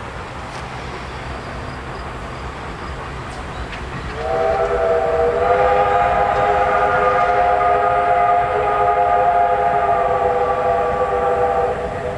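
Steam locomotive's chime whistle sounding one long chord of several notes, starting about four seconds in and held for about seven seconds, over the steady low rumble of the train.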